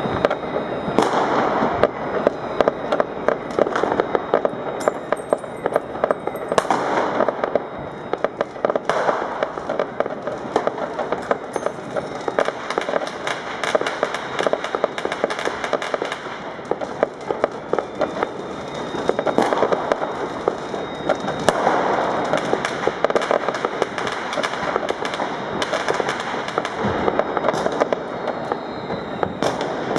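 Fireworks and firecrackers going off without pause: a dense crackle of pops and bangs, swelling louder every few seconds.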